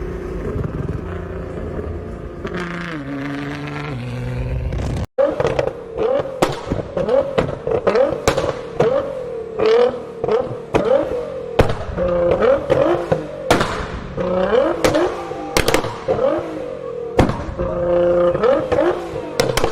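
Nissan GT-R with a custom exhaust. For the first few seconds its engine note steps down in pitch. After a cut, the engine is revved in blips with a string of loud, sharp exhaust pops and bangs.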